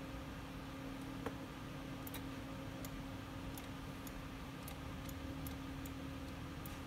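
Faint irregular clicks from a computer mouse as the view is moved, over a steady low electrical hum.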